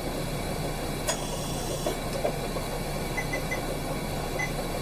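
Steady low hum and hiss of room background, with a soft click about a second in and a few faint, short, high beeps near the end.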